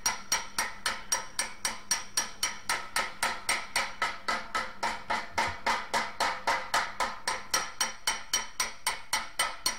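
Panel-beating hammer striking a brass radiator shell in a fast, even rhythm of about four or five blows a second, each with a short metallic ring, as dents are worked back into shape.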